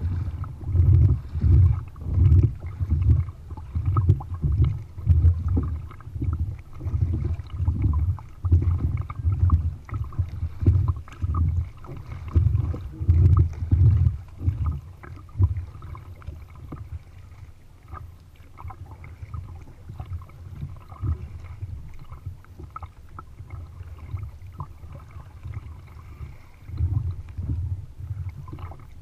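Kayak being paddled through choppy water: a rhythmic run of low water pulses from the paddle strokes and the hull, about one or two a second. It eases off about halfway through and picks up again near the end.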